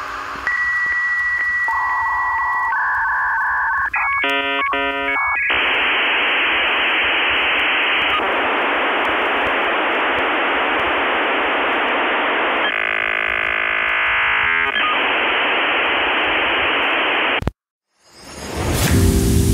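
Dial-up modem connecting over a phone line. A steady high answer tone gives way to a short burst of shifting tones, then a long rushing hiss with a brief warbling stretch, which cuts off suddenly near the end.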